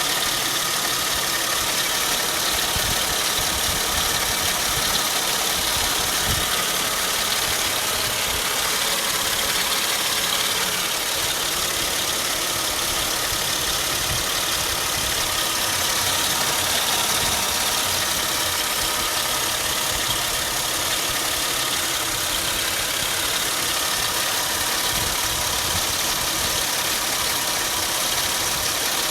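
Mercedes-Benz CLK 320's 3.2-litre V6 engine idling steadily, with no revving.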